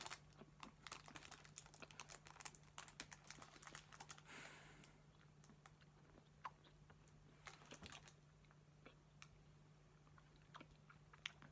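Faint chewing of a cherry Airhead taffy: soft, sticky mouth clicks and smacks, thickest in the first few seconds and sparser later, over a faint steady low hum.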